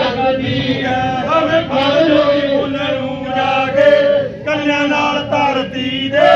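A man singing in a chanting Punjabi folk style, his phrases breaking off and restarting, over a steady drone held on a bowed string instrument.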